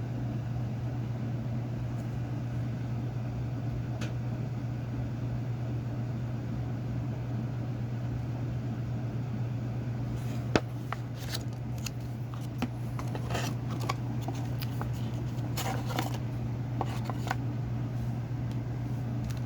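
A steady low hum throughout. About halfway, a sharp click, then irregular rustling and clicking as the shower head's plastic parts and packaging are handled.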